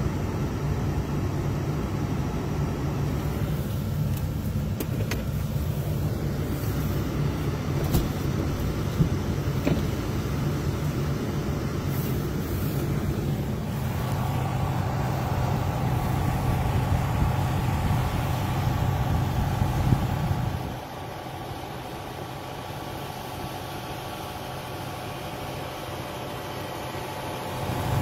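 Steady engine and road noise heard from inside a moving vehicle, a low rumble with a hum. About three-quarters of the way through the low rumble drops away and it goes quieter, then comes back just before the end.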